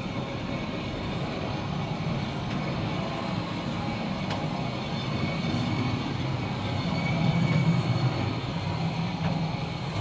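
Woodland Mills HM122 sawmill cutting head rolling along its steel track, a steady rumble that builds and is loudest about seven seconds in.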